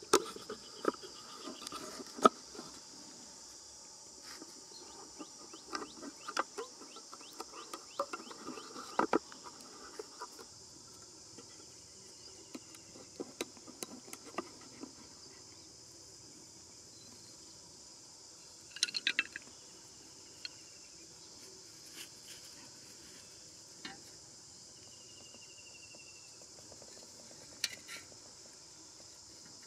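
Steady high buzzing of insects, with scattered sharp clicks and knocks from hands handling a plastic bottle, wooden sticks and string. The knocks are most frequent in the first ten seconds, with a short burst of them a little before the twenty-second mark.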